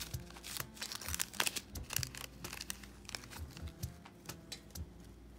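Red foil powder packet from a Popin' Cookin' candy kit crinkling and tearing as it is handled and opened: a run of small, irregular crackles.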